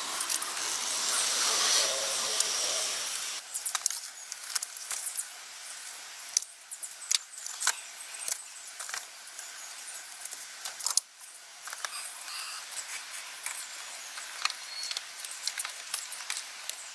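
A steady hiss for about three seconds that cuts off abruptly, then scattered sharp clicks and clinks of hand tools and small metal parts being handled during car repair work.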